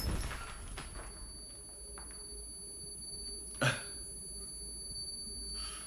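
A steady high-pitched ringing tone, with one sharp hit about three and a half seconds in and a short hiss near the end.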